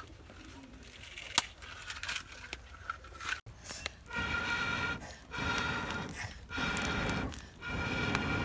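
A cook blowing hard through a blow pipe into a wood fire to fan the flames: four long breathy blasts with a faint whistle, about one every 1.2 seconds, starting about halfway through. Before them it is quiet but for a single sharp tap.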